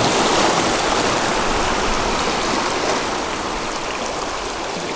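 Small waves washing and foaming over the rocks at the water's edge, a steady rush of water that eases slightly near the end.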